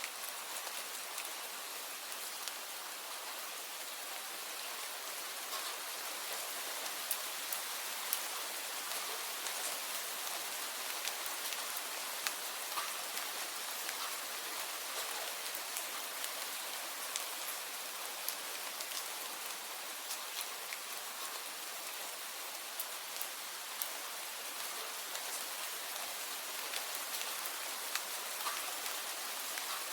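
Steady rain falling: an even hiss with scattered individual drops ticking on a surface.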